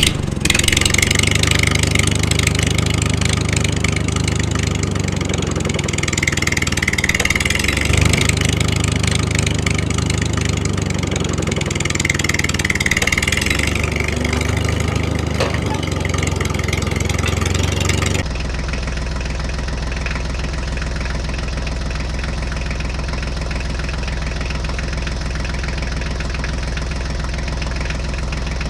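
Tractor engine running steadily with a low, even throb. About 18 seconds in it cuts abruptly to a steadier, duller engine recording.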